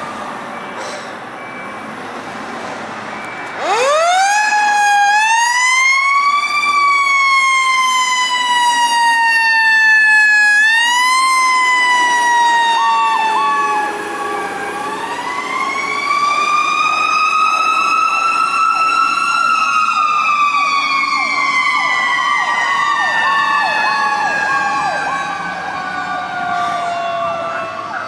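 Fire truck sirens responding. One siren winds up sharply about four seconds in, then rises and falls slowly several times, the longest swell peaking about two-thirds of the way through. From about halfway through, a second siren joins with a tone that drops quickly over and over.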